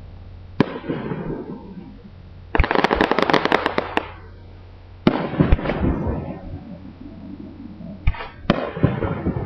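Aerial fireworks shells bursting overhead. A sharp bang about half a second in is followed by a dense, rapid crackling for over a second around the three-second mark. Another bang with crackle comes about five seconds in, and more bangs and crackling near the end, each bang trailing off in an echo.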